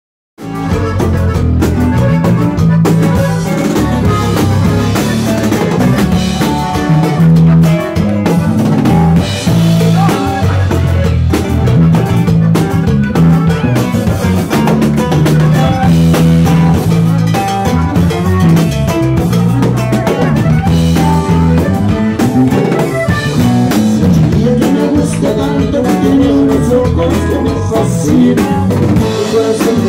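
Live norteño band playing loudly: button accordion lead over guitar, bass and a drum kit keeping a steady beat, starting about half a second in.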